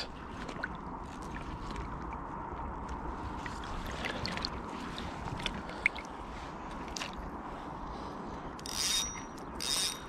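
Spinning fishing reel being cranked, a steady whir with small scattered clicks, as a crankbait is retrieved. Two short hissing bursts come near the end.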